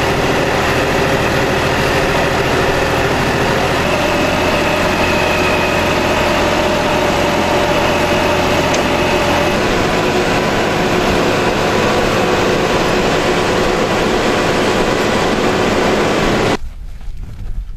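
A vehicle's engine and driving noise, loud and steady, with the engine note shifting a couple of times. It cuts off suddenly near the end.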